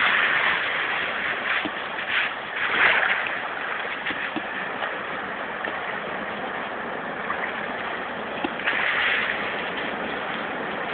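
Small sea waves washing on the shore: a steady rush of water, swelling louder a few times.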